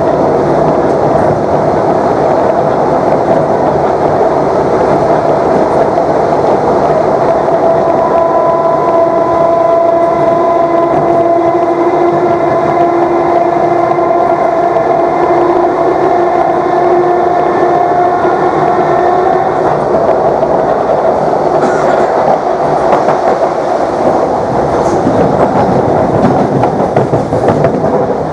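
Class 321 electric multiple unit at speed, with loud running noise and traction motor thrash. For a stretch in the middle a whine of several steady tones rises above the noise, then fades.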